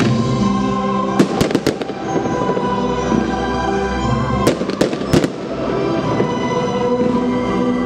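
Fireworks bursting over music: a quick cluster of sharp bangs about a second in and another cluster around four and a half to five seconds, with music playing underneath.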